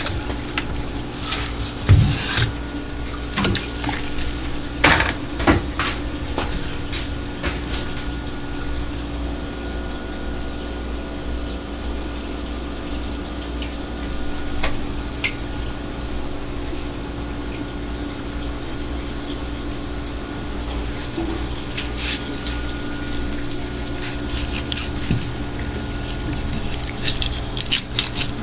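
Water running and dripping in a steel kitchen sink over a steady low machine hum, with scattered knocks and clatter from a plastic fish crate and a live anglerfish being handled on a cutting board, mostly in the first few seconds and again near the end.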